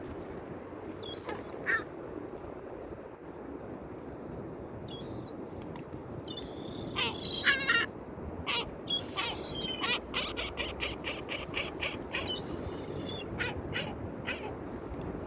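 Birds calling: harsh, scratchy calls on and off, the loudest around the middle, then a rapid chattering run of short notes, over a steady low rushing noise.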